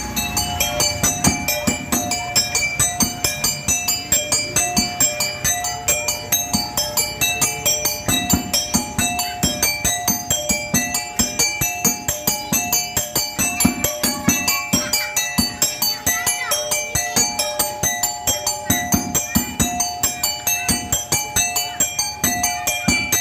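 Rhythmic music: fast, even percussive strokes, about three a second, under a repeating pattern of bright metallic pitched notes.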